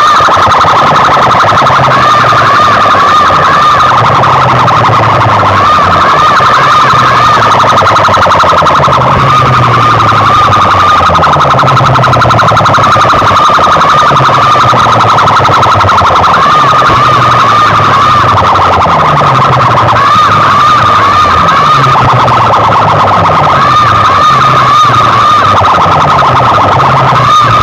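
DJ sound-system loudspeakers blasting a siren-effect track at full level: a fast wobbling warble over a bass line that steps down again and again.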